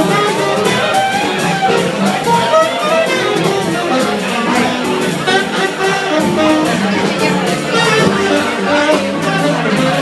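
Live small-group jazz: a saxophone playing a moving melodic line over archtop electric guitar and upright double bass.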